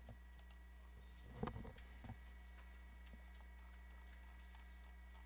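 Near silence: a steady low hum of room or recording noise, with a few faint clicks.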